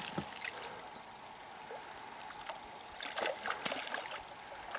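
Shallow river running steadily over stones, with a hooked lenok splashing and thrashing at the surface near the bank in several short splashes from about three seconds in.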